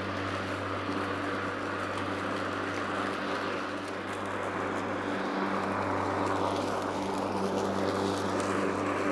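Stiga Expert Twinclip 950 SQ AE cordless battery lawnmower running while it mows grass with the side-discharge deflector fitted. Its electric motor and spinning twin blade give a steady hum over a rush of cut grass.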